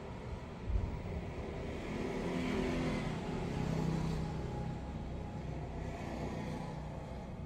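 A motor vehicle passing, swelling to its loudest around the middle and fading away. A short knock about a second in.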